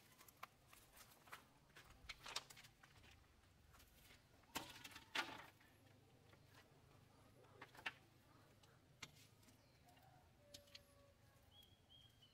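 Near silence broken by scattered light knocks and clicks, the loudest a pair about halfway through, with two faint short high chirps near the end.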